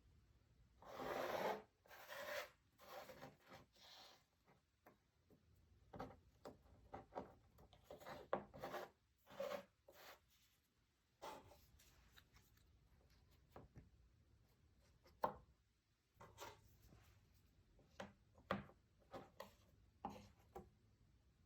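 Cardboard jigsaw puzzle pieces being handled: soft, irregular rubbing and sliding scrapes, with a few sharp taps as pieces are set down.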